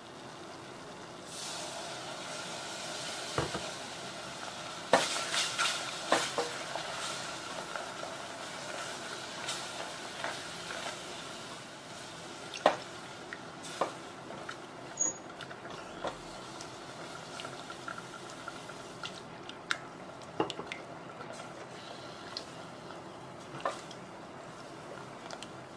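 Silicone spatula stirring and scraping a butter-flour roux around a stainless steel pot, over a steady sizzle of the roux cooking. The spatula knocks against the pot now and then, most often about five to six seconds in.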